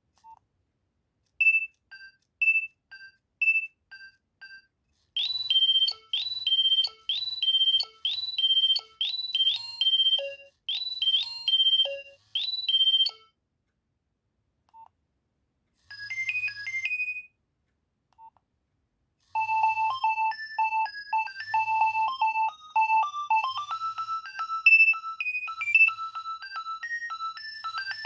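Nokia 2300 mobile phone ringtones played one after another. First come short alternating high and low beeps. Then a chirpy phrase repeats for about eight seconds, a brief phrase follows after a pause, and from about two-thirds of the way in a faster, busier melody plays.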